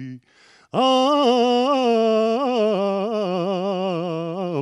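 Man singing a sevdalinka unaccompanied into a handheld microphone: a brief breath pause, then about a second in, one long sustained note ornamented with wavering melismatic turns.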